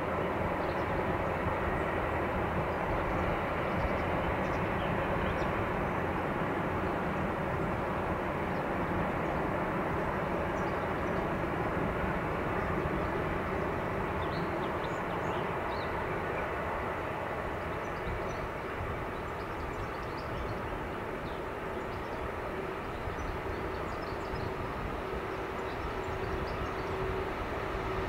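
Freight train of tank wagons hauled by a DB class 152 electric locomotive, rolling steadily on the rails: an even running rumble of wheels and train, with a steady tone joining near the end.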